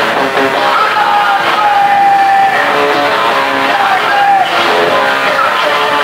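Punk rock band playing a song, guitar to the fore, with held notes that bend in pitch.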